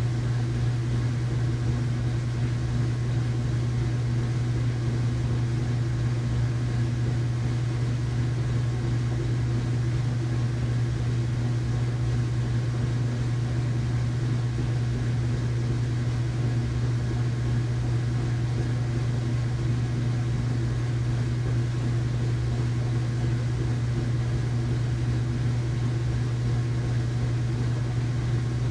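Household washing machine running in its rinse cycle: a steady low motor hum over an even wash of noise.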